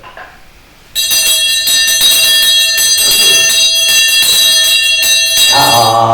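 A metal bell ringing steadily with many high, ringing overtones. It starts suddenly about a second in and stops just as chanting resumes near the end.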